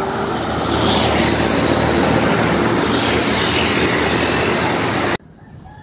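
Busy road traffic passing close by: a steady rush of engines and tyres, which cuts off suddenly about five seconds in.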